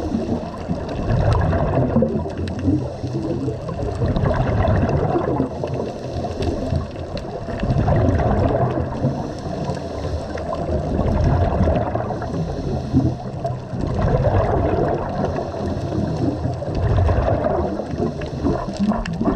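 Scuba regulator exhaust bubbles gurgling underwater, swelling into a louder burst of bubbling every three to four seconds with each exhaled breath.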